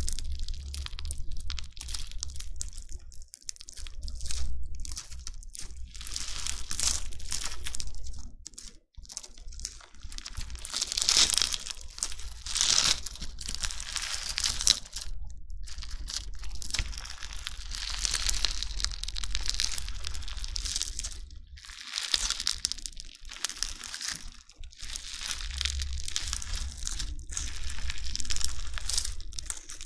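Crunchy bingsu slime, packed with tiny plastic beads, being squeezed: dense crackling and crunching that swells and eases in waves, with a few short pauses between squeezes.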